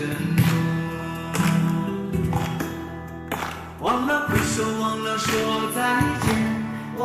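Music from a ballad: sustained melodic notes over a steady beat.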